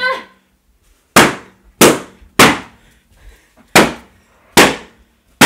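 Pink balloons bursting one after another: a quick run of about six loud, sharp pops at uneven intervals.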